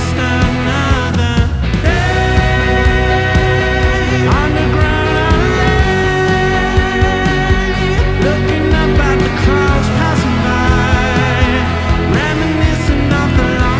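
Music: a track with a steady drum beat and long held melodic notes.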